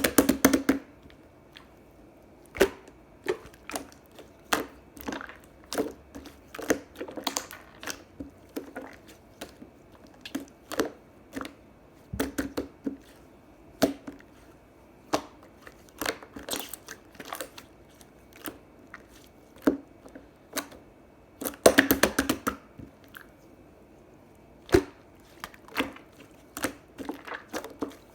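Thick pudding slime pressed, poked and stretched by hand, giving irregular sticky clicks, pops and squishes. A denser run of crackling comes about three-quarters of the way through.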